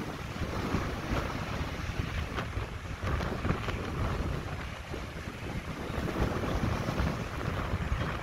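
Wind buffeting the microphone: a rough, gusty rumble and hiss that rises and falls unevenly.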